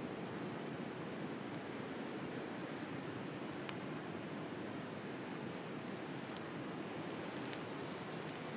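Steady rush of sea waves, with a few faint crackles from a wood bonfire, several of them late on.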